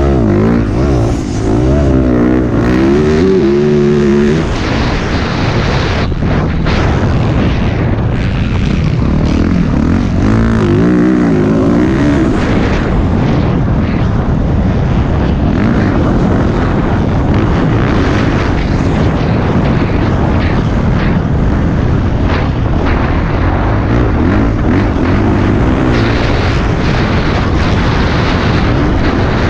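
Dirt bike engine revving as it is ridden, its pitch climbing and dropping again and again as the throttle is worked.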